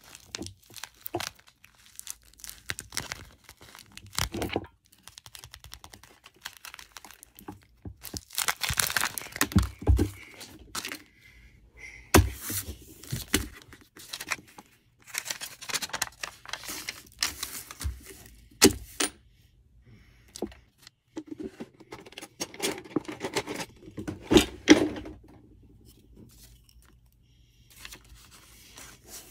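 Paper and plastic packaging crinkling and rustling as it is handled and unfolded, in irregular bursts with a few sharp taps.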